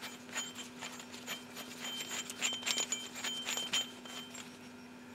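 Loose metal parts of a brake caliper piston rewind tool kit clinking and rattling against each other as they are handled, many clinks ringing briefly. The clinks come thickest and loudest about two to four seconds in.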